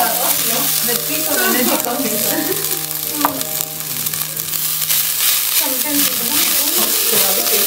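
Whole spices, shallots, cashews and ginger-garlic for a salna curry masala sizzling as they fry in a pan and are stirred, before being ground into a paste.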